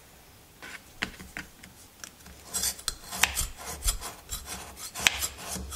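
Knife blade scraping a hard block of papelón (unrefined cane sugar), shaving it into crumbs with a series of short, irregular rasping strokes that grow louder about two and a half seconds in.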